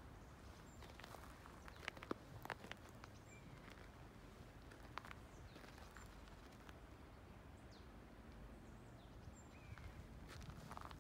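Near silence: quiet outdoor ambience with faint, short, high bird chirps every few seconds and a few soft clicks about two seconds in and again near five seconds.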